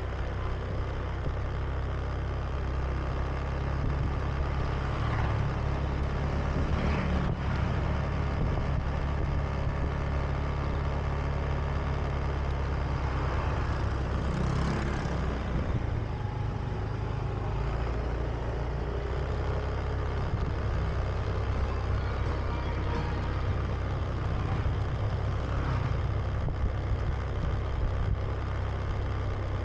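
Honda Beat scooter riding steadily through town, its engine running under a constant low rumble of wind and road noise on the chest-worn camera. Another vehicle passes close by about halfway through.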